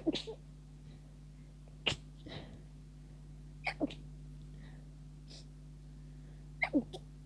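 A rapid series of stifled sneezes, held back so each is short and clipped: about five bursts, some coming in quick pairs, with faint breaths between them. They are tickly sneezes from a lingering head cold.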